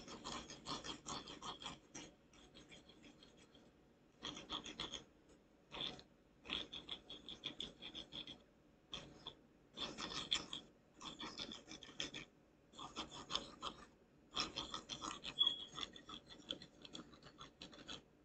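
A toothpick scratching through wet paint on a wooden board as it swirls the paint. It comes as bursts of quick scratchy strokes, each lasting from half a second to two seconds, with short pauses between them.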